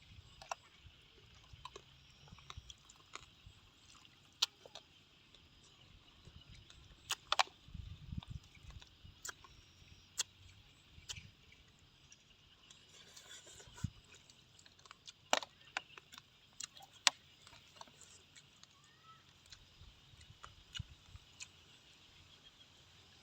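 Scattered sharp clicks and taps, with a few soft thumps, over a faint steady hiss.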